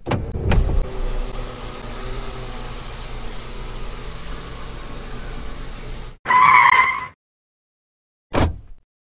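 Car engine running steadily for about six seconds after two knocks at the start, then cutting off abruptly. A single car horn honk lasting about a second follows, then a short thud near the end.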